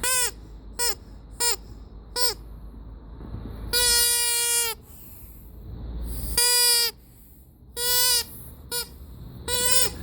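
Rubber squeaky toy squeezed over and over: about nine squeaks, some quick and some held for most of a second, each on one steady pitch that drops as the air runs out.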